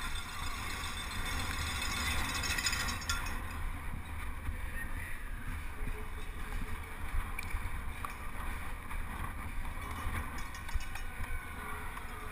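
Wind buffeting the microphone of a helmet camera on a penny-farthing ridden at race speed: a steady, uneven low rushing.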